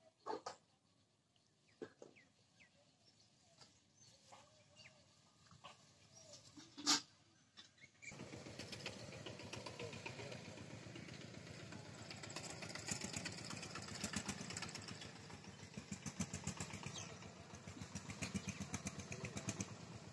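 A small engine running with a fast, even pulse, starting abruptly about eight seconds in. Before it there are only faint scattered clicks and a few short chirps.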